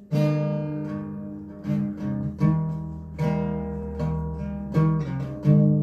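Acoustic guitar strumming chords, each strum left to ring, about one strum every three-quarters of a second.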